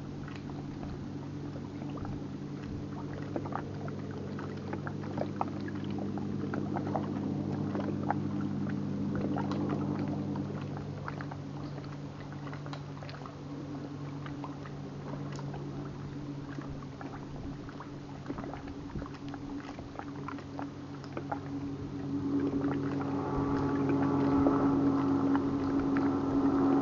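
Motorboat engine running: a steady low hum that swells and eases over the first half. In the last few seconds a higher engine note comes in and grows louder. Light scattered ticks run underneath.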